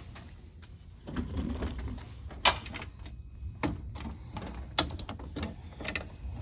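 Scattered sharp metallic clicks and knocks from hand tools and a ratchet being handled while working on the radiator bolts, the loudest about two and a half seconds in and near five seconds, with shuffling handling noise in between.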